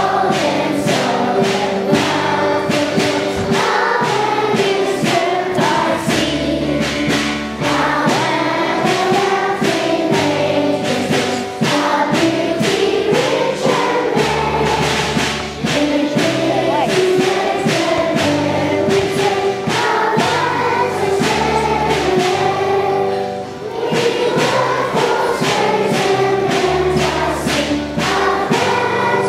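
A group of children singing together over recorded music with a steady beat and bass line.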